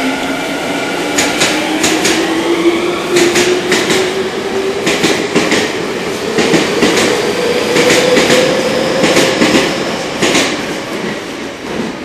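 Tokyu 5000 series electric train pulling out and accelerating: the whine of its inverter-driven traction motors rises steadily in pitch, while the wheels click over rail joints in quick groups. The sound fades near the end as the last cars leave.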